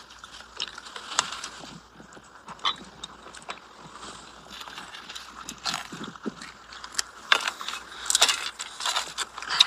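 Scattered light clicks and clinks of spoons, tea glasses and plates being handled, over a soft rustling.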